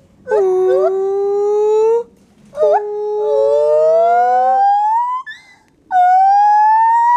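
White-handed gibbon calling: a series of loud, long hoots, each held for a second or two. The later notes slide upward in pitch, and each starts higher than the one before, so the call climbs as it goes.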